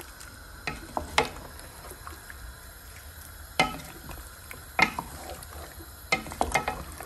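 Wooden spoon stirring chicken pieces and tomatoes in hot oil in a metal pot, knocking sharply against the pot several times over a faint steady sizzle.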